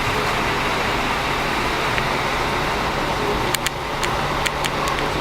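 Steady running noise of a bus: a low engine hum under an even hiss, with a few sharp clicks between about three and a half and five seconds in.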